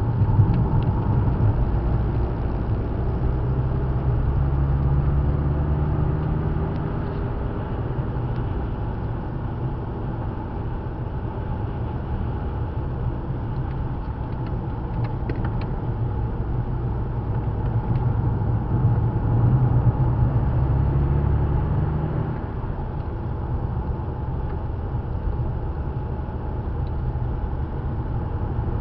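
Car engine heard from inside the cabin under track driving, its pitch rising under acceleration twice, about two seconds in and again around the middle, and dropping away after each pull.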